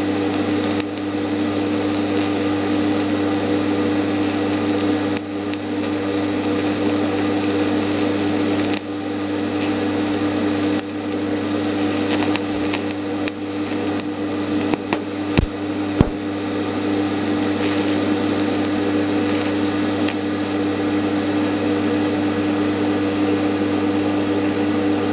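TIG welding arc from an R-Tech 261 AC/DC inverter TIG welder burning steadily on a cast iron casting during silicon bronze TIG brazing: a constant electrical buzz over a steady hiss. A couple of sharp clicks come about two-thirds of the way through.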